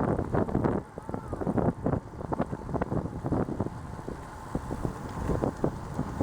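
Wind buffeting the microphone in uneven gusts, a rough rumbling noise that rises and drops every fraction of a second.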